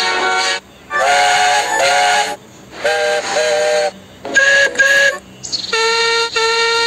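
Steam locomotive whistle sound effects from Thomas & Friends engines, one engine after another. They sound as short toots, mostly in pairs, each a chord of several steady notes, the pitch changing from engine to engine.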